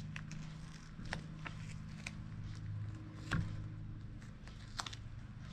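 Hands pressing and smoothing duct tape onto the molded foam cup of a bra: soft rustling with a few scattered sharp clicks and crinkles, over a steady low hum.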